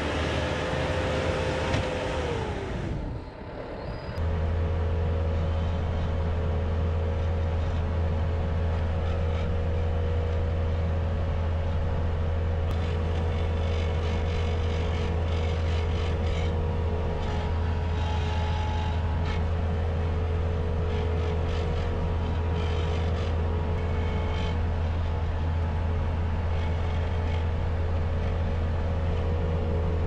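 Bobcat S250 skid-steer loader's diesel engine running steadily as the machine pushes snow, a low drone heard from inside the cab. Near the start its pitch drops, and after a brief dip the drone holds steady.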